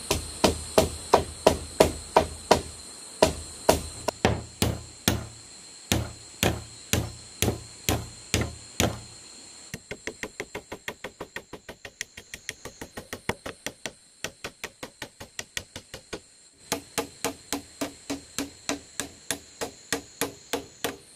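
A machete striking bamboo poles in a long run of sharp chopping blows, about two or three a second. In the middle comes a stretch of quicker, lighter taps, then the steadier blows return.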